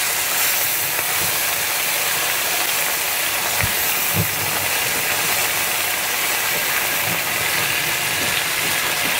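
Ginger and soybean sauce sizzling steadily in a wok while a wooden spatula stirs it, with two knocks of the spatula against the pan about four seconds in.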